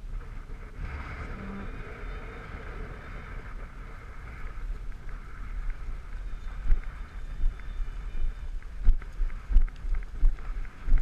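Wind rumbling on a horse-mounted rider's camera microphone, with irregular thuds from the horse's movement that grow stronger and more frequent in the second half as the pace picks up.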